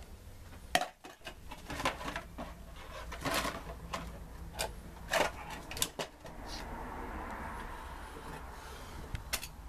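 Scattered sharp clinks and knocks of small metal steering-rack parts and tools being handled at a workbench, about seven in all. A steady hiss runs for a couple of seconds near the end.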